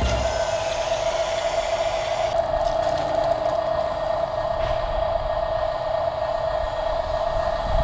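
Small electric motor and gearbox of a remote-control toy truck whirring steadily at one even pitch.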